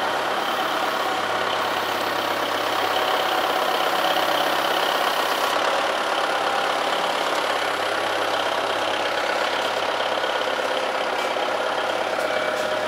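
Powered pallet stacker running steadily as it is driven across the warehouse floor: an even machine hum with a faint steady whine.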